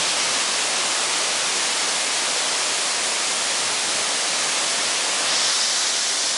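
Waterfall cascading over rock ledges: a steady, loud rush of water, turning a little brighter and hissier about five seconds in.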